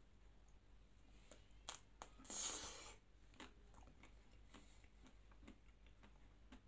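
Close-up mouth sounds of eating a chocolate-coated Magnum ice cream bar: a bite, then quiet chewing with small wet clicks. A louder, hissy, breathy sound lasts just under a second about two seconds in.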